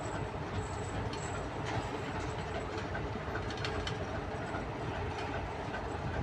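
TEM2 diesel shunting locomotive running steadily during shunting in a rail yard, with a few scattered clicks and knocks from the rails and wagons.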